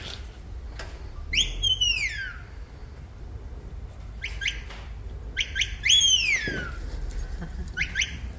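Sheepdog handler's whistled commands to a border collie, sending it to the left of the sheep: short upward notes followed by a long note falling in pitch, repeated several times.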